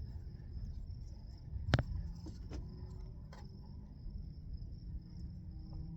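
A steady, high, continuous insect trill, like crickets, over a low rumble, with one sharp click nearly two seconds in and a few fainter clicks after it.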